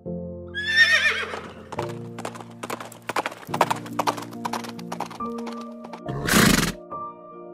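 A horse whinnies about a second in, a quavering call that falls in pitch, then hooves clop irregularly for a few seconds, and a short loud snort comes near the end. Soft background music with held notes plays throughout.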